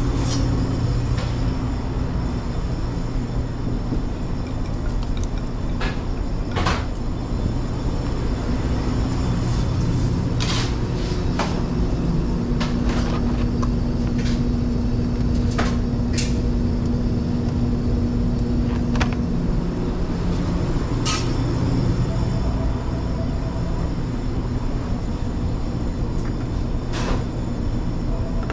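Steady low mechanical hum of commercial kitchen equipment, with occasional short clicks and taps as plastic sauce cups and a foam takeout box are handled.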